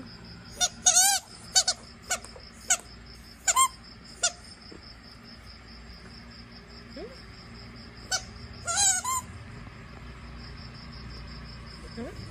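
Squeaky ball toy squeaking as a Shiba Inu chews it: a run of short squeaks in the first four seconds, one longer wavering squeal about a second in, then a few more squeaks with another wavering squeal about two-thirds of the way through.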